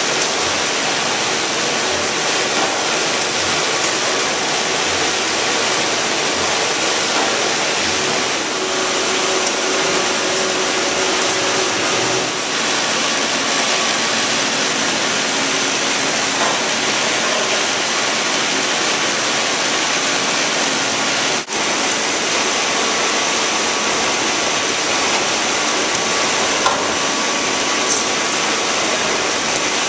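Steady hiss and hum of fish-processing machinery: the conveyor belts of a fish trimming flowline running, with plant ventilation. The sound briefly cuts out about 21 seconds in.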